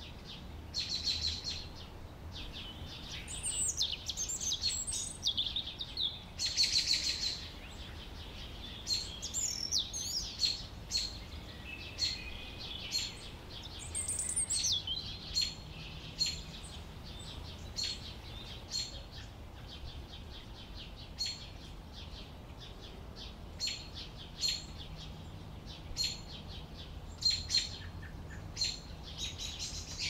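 Canaries chirping: many short, high calls repeated throughout, with a few quick warbled phrases in the first half.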